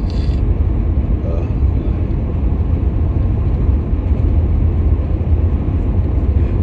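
Steady low rumble of road and engine noise inside a moving vehicle.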